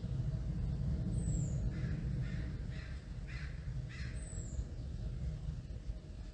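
Crow cawing in a quick series of harsh calls, about two a second, a couple of seconds in. Underneath is a steady low rumble, and a thin high falling chirp from another bird repeats every few seconds.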